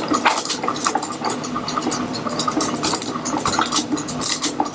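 Slime being mixed inside a lidded plastic slime-making container: a steady run of rapid, irregular clicks and rattles.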